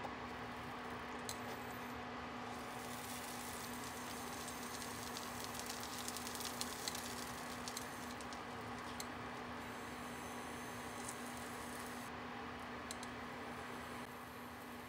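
Butter melting and sizzling with light crackles in a nonstick frying pan as pandesal rolls are set into it, over the induction cooktop's steady low hum. The sizzle thickens a few seconds in and eases near the end.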